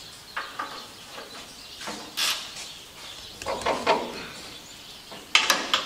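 Scattered metallic clicks and clanks of a hand wrench working bolts on the chipper's engine mount, with a sharp cluster of clicks near the end.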